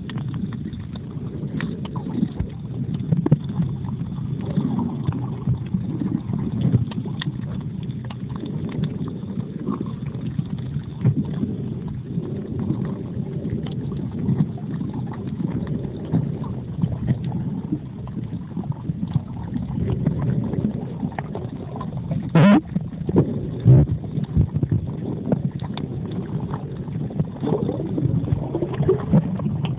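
Muffled underwater water noise picked up by a smartphone sealed in a waterproof pouch while snorkeling, a steady low rumble with frequent small clicks and crackles and one louder knock a little past twenty seconds in.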